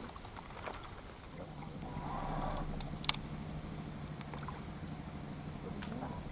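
Bass boat's electric trolling motor humming low and steady, coming on about a second and a half in. A single sharp click sounds about three seconds in.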